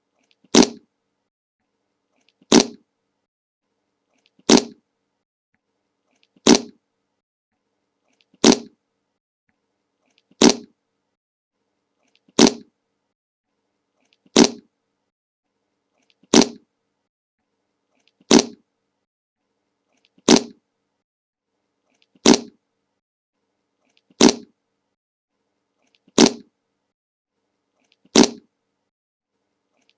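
A short fart sound effect, the same clip repeated about every two seconds. Each one starts sharply and dies away within a fraction of a second, with silence between.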